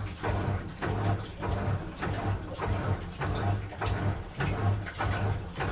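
Washing machine agitating on a strong cycle, water and laundry sloshing in rhythmic swishes about twice a second, with a low motor hum that swells with each stroke.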